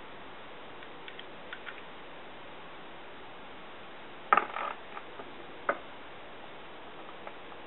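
Clicks and knocks of small hard strap hardware being handled: a few faint ticks, then a sharp clattering cluster about four and a half seconds in and a single click near six seconds, over a steady hiss.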